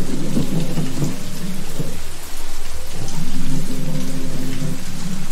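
Steady heavy rain from a thunderstorm recording, with a low rumble underneath that fades briefly about two seconds in.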